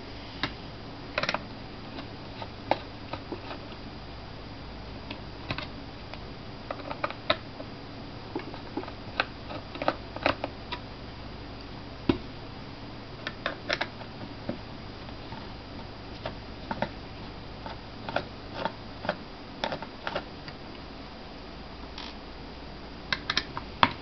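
Small Phillips screwdriver loosening the screws of a laptop hard drive's metal caddy: scattered, irregular light clicks and taps of the tool against the screws and case, over a faint steady hum.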